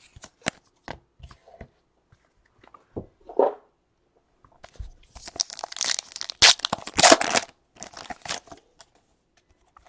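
A Panini Chronicles baseball card pack wrapper is torn open and crinkled: a run of ripping, crackling noise from about five seconds in, loudest past the middle. Before it come a few light clicks of cards being handled.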